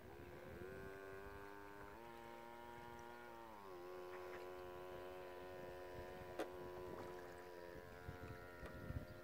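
Motor of a cardboard RC model ship running as a thin steady whine whose pitch steps up near the start, shifts again about two seconds in and drops about three and a half seconds in, following the throttle. A sharp click about six and a half seconds in, and a few softer ticks near the end.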